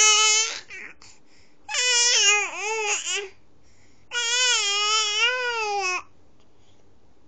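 A baby giving three loud, high-pitched complaining wails: a short one, then one that bends up and down in pitch, then one held for nearly two seconds.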